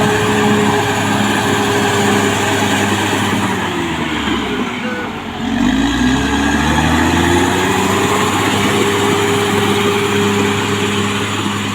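Diesel engine of a CAT D6R XL crawler bulldozer running at high revs. About four seconds in, the revs sag briefly and then climb back up about two seconds later before settling steady again.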